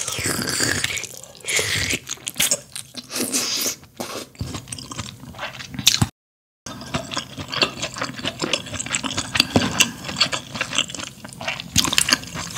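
Close-miked eating of spicy malatang: wet slurping of broth and food from a spoon, then chewing with many small wet clicks and smacks. The sound drops out completely for about half a second partway through.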